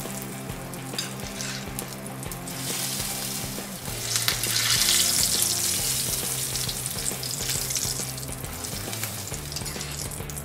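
Hot tadka of oil with mustard seeds, curry leaves and green chillies sizzling as it is spooned over steamed dhokla. The sizzle swells to its loudest about four seconds in.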